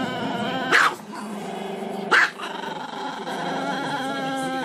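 A Chihuahua howling with its head raised: long, wavering, drawn-out howls, broken twice by a short, sharp yip, about a second in and again after about two seconds.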